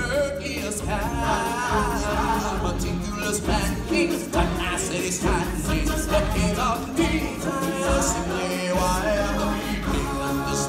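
Live stage-show music: a lead singer singing into a microphone over a loud backing track with a steady drum beat.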